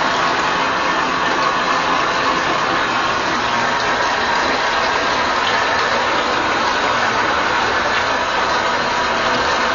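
Water running steadily, a continuous even rushing hiss with no breaks.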